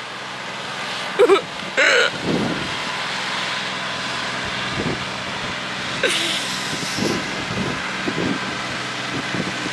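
A steady rushing noise from the wildfire close by, under a woman's short crying sobs about a second in and again near two seconds.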